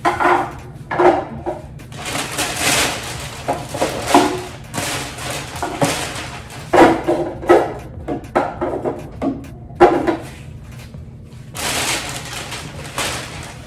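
Plastic storage containers being handled and moved about: a run of irregular rustling and light knocks, some louder, with short gaps between them.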